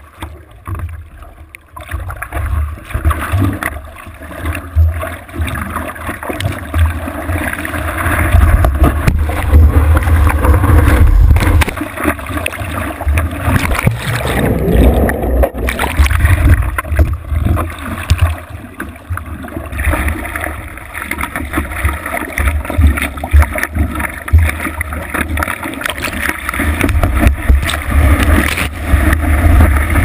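Breaking surf and whitewater rushing and splashing right around the microphone as a surfer rides a small wave, with heavy water and wind buffeting on the microphone. The level surges unevenly and is loudest about a third of the way in.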